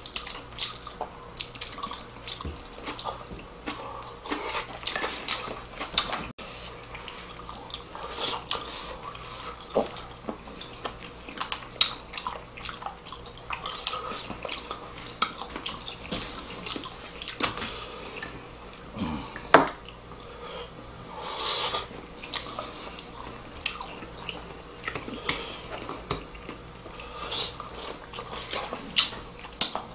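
Close-up eating sounds: chewing and mouth smacking, with frequent short clicks of chopsticks against ceramic bowls and plates. There are two louder sharp knocks, about six seconds in and just before twenty seconds.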